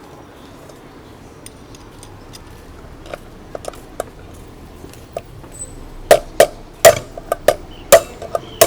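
Hammer striking to knock a 6201 wheel bearing out of an electric bike's front hub: a few faint metal clicks, then from about six seconds in a run of sharp, ringing metal strikes, about three a second.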